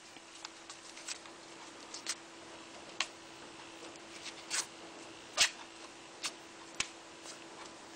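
Florist tape being stretched and wound around a wire flower stem by hand, giving scattered small crackles and ticks, the sharpest about five and a half seconds in, over a faint steady hum.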